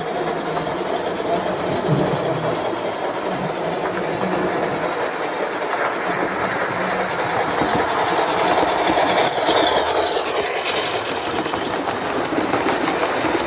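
Gauge 1 model trains running on the layout's track: a steady rolling clatter of wheels over the rail joints, growing busier in the second half as a train passes close by.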